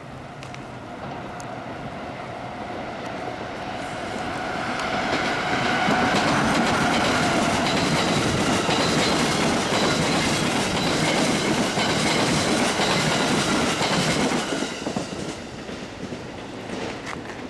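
A train passing by at speed, wheels clattering over the rail joints, with a faint steady whine over the noise. It grows louder over the first five seconds, stays loud for about eight seconds, then quickly dies away.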